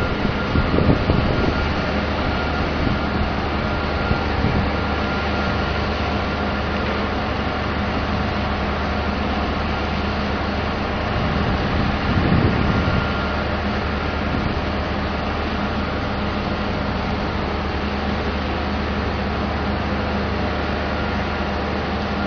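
Drilling rig machinery running with a steady low drone and a faint high whine, while the rig's lattice mast is raised. It swells louder briefly about a second in and again around twelve seconds in.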